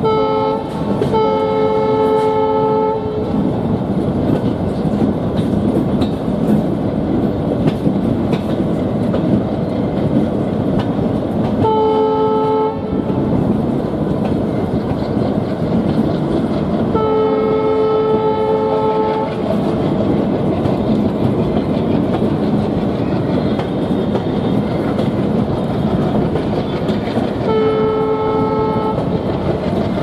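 ALCO diesel locomotive's horn sounding on one steady note from the head of the train: a short toot and a longer blast at the start, then blasts about 12, 17 and 28 seconds in, the one near 17 s the longest. Underneath runs the steady rumble and clatter of the coaches' wheels on the track.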